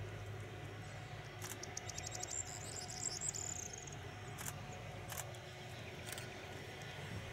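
Faint, steady low rumble and whine of the Il-76TD-90VD's Aviadvigatel PS-90A turbofans at taxi power as the aircraft moves away. A rapid high-pitched chirping trill sounds about one and a half to three seconds in, followed by a few sharp ticks.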